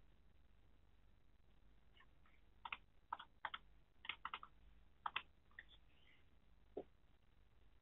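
Faint clicks of a computer mouse, a dozen or so in quick pairs and small groups, as dialog buttons are clicked; near the end, one duller, softer knock.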